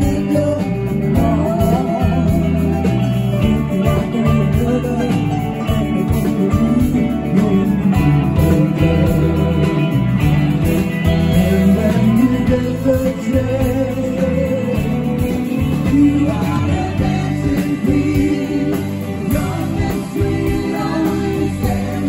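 Live rock band playing at concert volume: electric guitars, bass and drums, with a voice singing over them.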